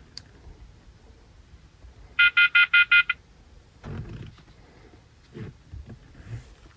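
A rapid series of about six short, loud electronic beeps lasting about a second, followed by a few faint low knocks.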